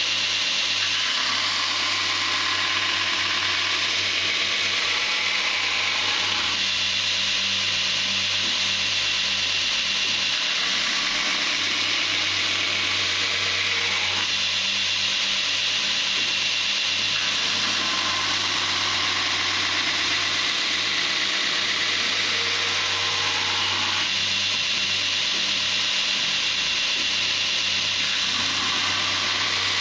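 Belt grinder running continuously, D2 tool steel being ground against the abrasive belt with a loud hiss over a steady motor hum. The grinding sound shifts every few seconds as the blade is moved and pressed across the belt.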